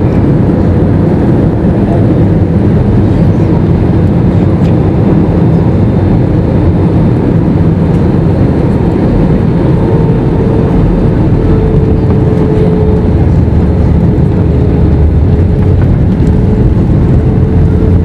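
Loud, steady rumble of a jet airliner's wing-mounted turbofan engines and rushing air, heard inside the cabin. A faint steady hum joins it about ten seconds in.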